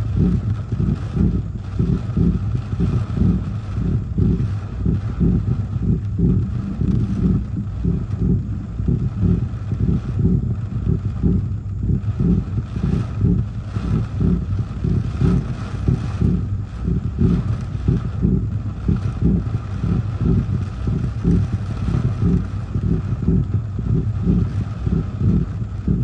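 Gusty storm wind buffeting the microphone: a loud, rapidly fluttering low rumble, with a faint hiss of rain over it.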